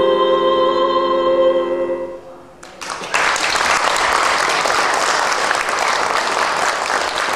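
A woman's voice holds the last sung note over a sustained piano chord, fading out about two seconds in. Then the audience breaks into steady applause.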